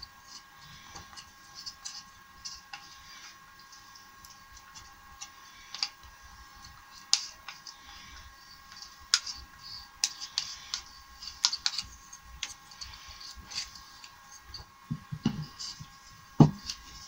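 Scattered small clicks and scrapes of a thin wooden stick working glue into a Domino mortise in a beech door rail, with a louder wooden knock near the end as the rail and stile are pushed together.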